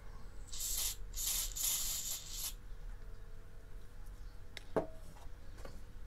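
Aerosol spray lubricant hissing through a straw nozzle in three short bursts into the front bearing of a fan motor's shaft, followed a couple of seconds later by a single click.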